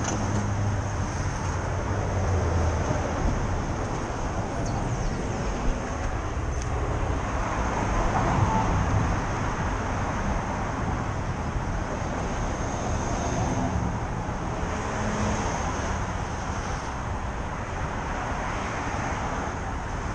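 Street traffic noise: passing cars make a steady rumble that swells about eight seconds in and again near the end.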